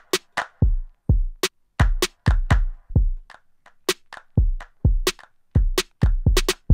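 A programmed drum-machine beat playing back. Deep kick drums are spaced between sharp, snappy percussion hits in a bouncy, syncopated rhythm.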